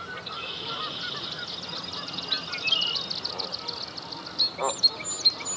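Canada geese honking, the clearest honk near the end, over continuous high-pitched bird chirps and trills.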